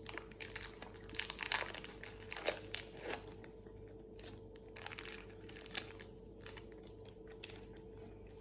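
Shiny foil wrapper of a Cadbury Turkish Delight Dark bar crinkling as it is torn and pulled open, a dense run of quick crackles that thins out after about three and a half seconds.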